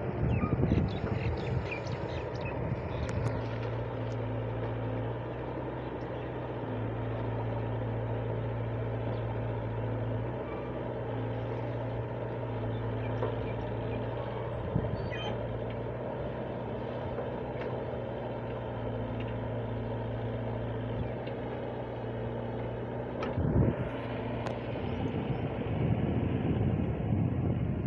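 Wheeled excavator's diesel engine running steadily under hydraulic load as the bucket digs, its tone stepping up and down as the load changes. There are a few knocks in the first seconds and one sharp clunk a few seconds before the end.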